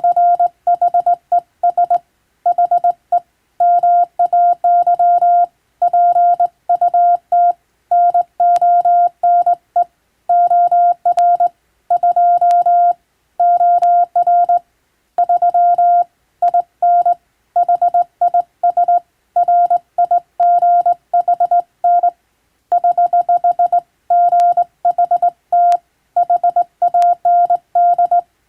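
Hand-keyed Morse code: a single steady beep tone switched on and off in dots and dashes, sent in letter and word groups with short pauses between them. It is English-language telegram text sent for receiving practice.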